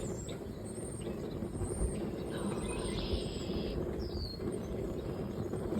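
A flock of small birds chirping, with scattered short high chirps and one falling call, over a steady low rumble.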